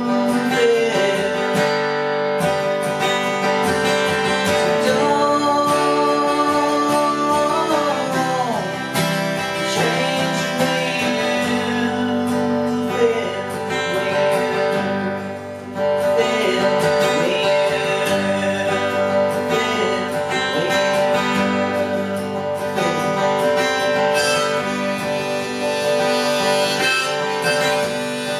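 Acoustic guitar strummed steadily with a harmonica, held in a neck rack, playing held and bending notes over the chords, played unamplified.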